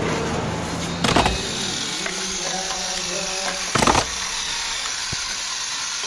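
Old wooden porch boards clattering as they are tossed down, two sharp knocks about a second in and again near four seconds, over a steady hiss.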